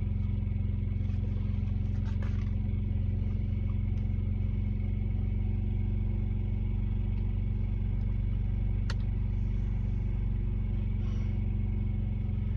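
Truck engine running steadily, a constant low hum heard inside the cab, with a faint click or two.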